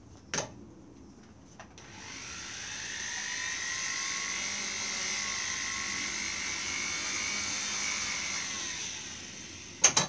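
A small rotary tool on a flexible shaft spinning up about two seconds in and running as a steady high whine while it drills shallow marking holes for the eyes in a carved wooden bird head, then winding down near the end. A sharp knock comes shortly before it starts.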